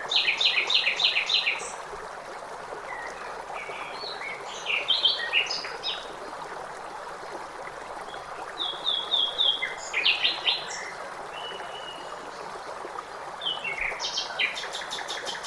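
Blackbird singing in short phrases of quick repeated notes, four phrases a few seconds apart, over the steady rush of flowing water.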